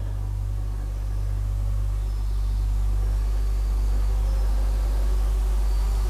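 A steady low rumble with faint hiss above it, with no distinct knocks or clicks.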